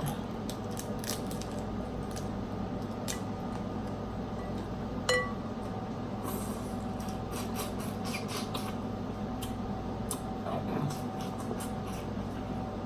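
Close-up eating sounds of a snow crab and shrimp seafood boil: many short clicks and wet smacks of shells being worked and food chewed. About five seconds in comes one short ringing clink. A steady low hum runs underneath.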